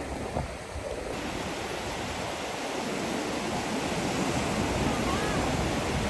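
Sea surf breaking and washing up a sandy beach: a steady rush that fills out about a second in and grows gradually louder.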